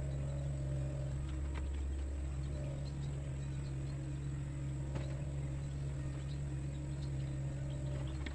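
Sunward mini excavator's diesel engine running at a steady pitch, with a few faint clicks.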